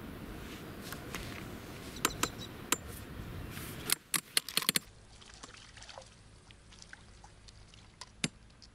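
Water trickling and splashing, with a quick run of sharp clicks about four seconds in; after that it is quieter, with a few scattered clicks.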